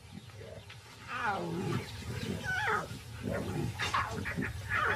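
Lion cubs growling and yowling as they play-fight, a series of short wavering calls over low grumbles.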